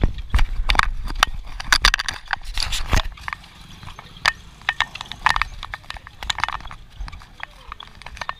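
Footsteps on a street, heard as sharp, irregular clicks about two or three a second and thickest in the first three seconds, over a low rumble.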